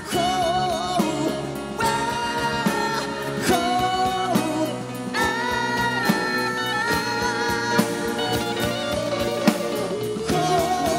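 Male vocalist belting long held notes with vibrato into a microphone, backed by a live band with drum kit, guitars and keyboards.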